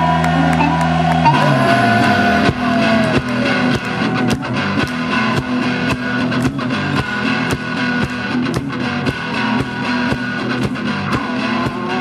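Live blues duo: an archtop hollow-body guitar picked in a driving rhythm, with a harmonica bending notes over it. A held low chord gives way to the steady beat about a second in.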